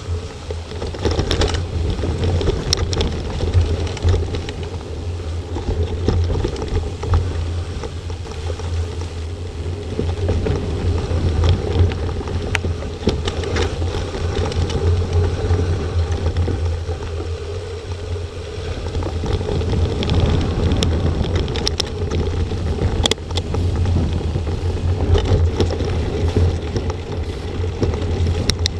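Wind rumbling on an action camera's microphone during a mountain bike ride over a rough forest trail, with occasional sharp clicks and rattles from the bike over bumps.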